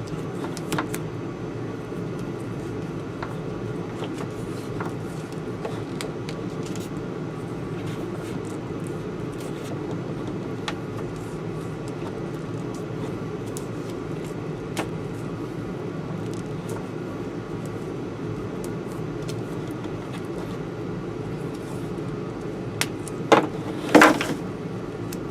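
Steady low rumble with scattered small ticks of wires being handled, and near the end a few sharp, loud crackling pulls, electrical tape being stripped off the roll to wrap the wiring.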